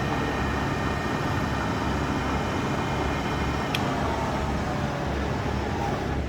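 Microcut 5000VS vertical mill's 5 HP variable-speed spindle head running in low gear: a steady motor hum with a gear whine. A single click comes a little after halfway, and the whine then falls in pitch as the spindle slows.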